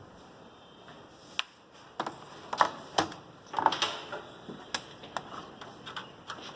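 Irregular clicks and knocks of a keyboard cable's plug being handled and pushed into the back-panel ports of a desktop PC cabinet, starting about a second and a half in.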